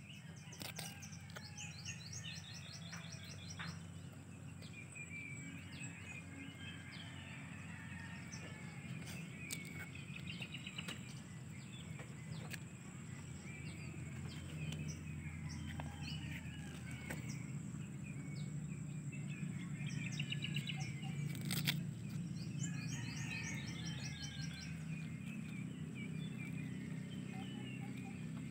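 Small birds chirping and trilling in repeated bursts over a steady low rumble, with scattered crisp clicks as a goat bites and chews a leaf; one sharper click comes about two-thirds of the way through.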